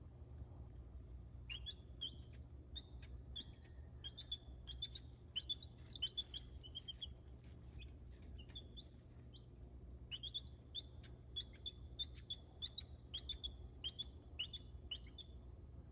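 Newly hatched chicks peeping: many short, high chirps in quick runs, with a brief lull about nine seconds in, over a steady low hum.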